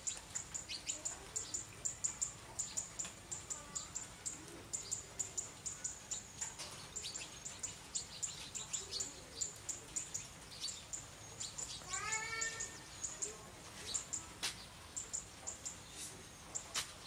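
Small birds chirping in quick, high-pitched repeated notes, with a cat meowing once about twelve seconds in.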